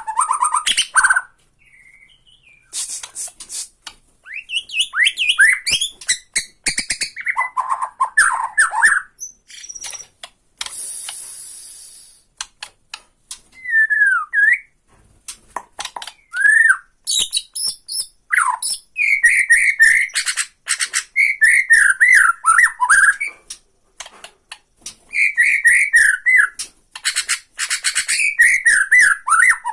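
Bornean white-rumped shama (murai batu Borneo) singing: varied whistled, gliding phrases broken up by runs of sharp rattling clicks, the 'ketrekan' challenge call that provokes rival shamas.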